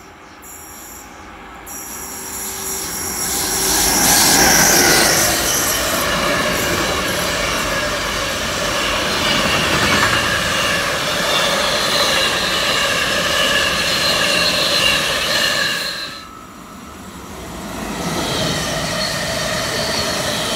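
A freight train of swap-body container wagons, hauled by an electric locomotive, passes close at speed: a loud rolling rumble that builds over a few seconds, with steady high-pitched wheel tones, and falls away near the end. After a short lull, an electric multiple unit passes.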